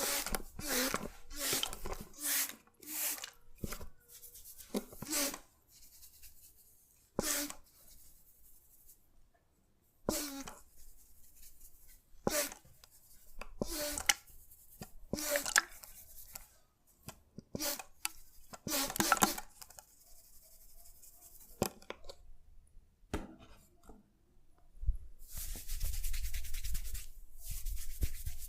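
Head massage strokes rubbing through hair on the scalp: a string of separate brushing swishes, roughly one every second or two. In the last few seconds they run into one longer continuous rub.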